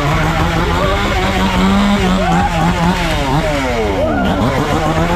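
Loud eerie sound effects: a steady low hum that steps in pitch, with several pitches sweeping up and down over it, some rising and falling at the same time.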